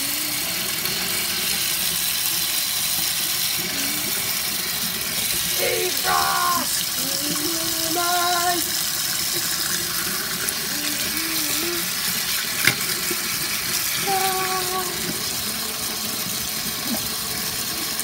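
Kitchen tap running a steady stream into a stainless steel sink, splashing over a melting block of ice in a glass jar and down the drain. The water is being used to defrost the ice.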